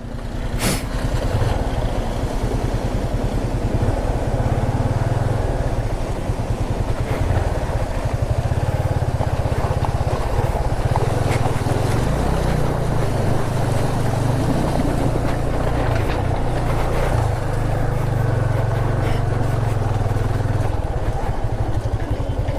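Motorcycle engine running steadily while riding a rough gravel track, with tyre and road noise over it. The engine note eases off near the end.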